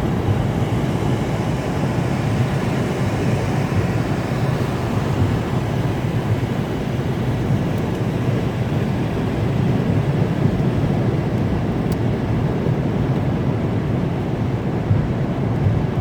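Steady low rumble of road and wind noise inside a car's cabin at highway speed, with the defroster fan running.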